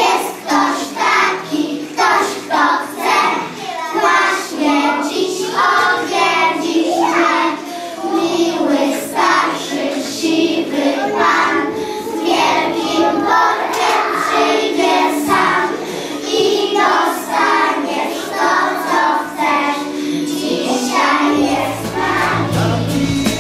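A group of young children singing a Christmas song together over accompanying music. A louder bass part comes in near the end.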